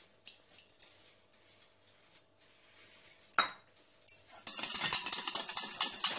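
Wire whisk stirring liquid ghee in a stainless steel bowl: a single clink a little over three seconds in, then fast continuous rattling and scraping of the whisk's metal wires against the bowl from about four and a half seconds in.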